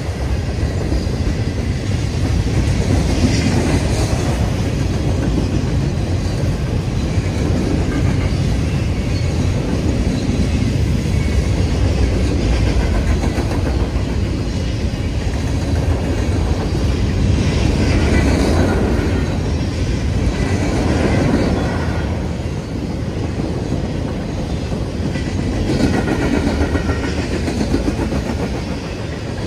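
Freight train cars rolling past close by: boxcars and then open-top hoppers on steel wheels, a continuous loud rumble of wheels on rail that swells and eases as the cars go by.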